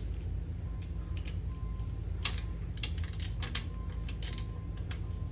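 Irregular metallic clicks and clinks of hand tools working on the mower's small mounting bolts, over a steady low hum.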